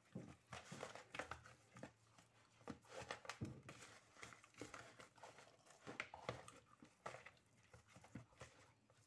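Hands rubbing seasoning into whole fish in a plastic bowl: faint, irregular rubbing and handling noises of palm on wet fish skin.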